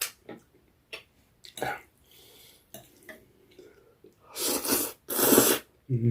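Close-miked eating: small wet mouth clicks and chewing, then two loud slurps of noodles about four and five seconds in.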